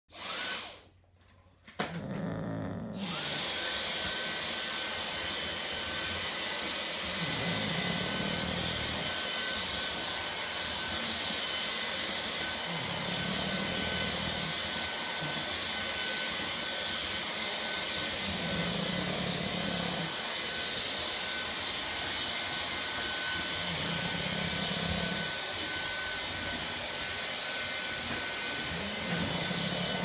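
Dyson cordless stick vacuum cleaner blips on for a moment, then switches on again about two seconds in, spinning up with a rising whine and running steadily with a high whine over the rush of air. Beneath it, a low rasp about every five seconds: a sleeping English Bulldog snoring.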